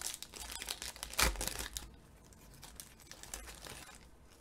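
Foil wrapper of a Panini Revolution basketball card pack being torn open and crinkled, loudest about a second in, then fainter crinkling near the end.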